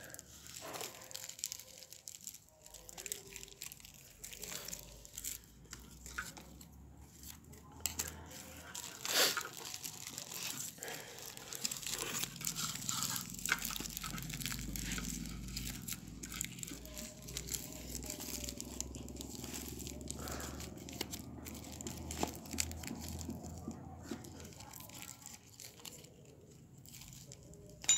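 Foil and paper crinkling and rustling in the hands, with scattered small clicks and one sharper crack about nine seconds in, as a homemade firework is folded and tied with string.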